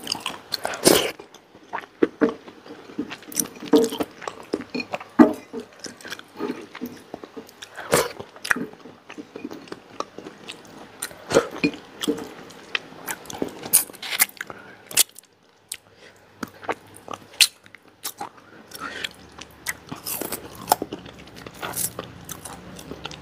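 Close-up sounds of a person eating fried chicken and rice by hand: irregular chewing and biting, one short sound after another, with a brief lull about two-thirds of the way through.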